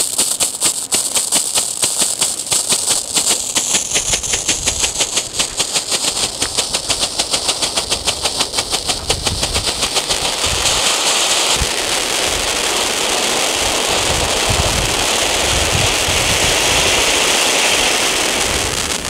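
Wonder Cones strobe volcano, a small F1 cone fountain firework, burning: a rapid, even strobe pulsing for about ten seconds, then a steady hiss as it sprays a fountain of sparks.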